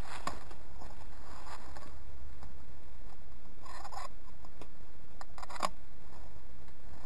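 A steady low rumble with a few faint rustles and light clicks, most of them in the second half. No gunshot is heard.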